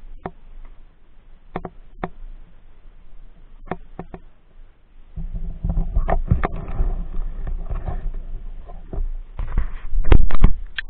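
Camera microphone being handled. A few scattered clicks, then from about five seconds in a low, rumbling rubbing noise, loudest near the end.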